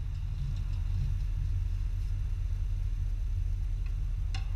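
Steady low rumble, with a couple of sharp clicks near the end.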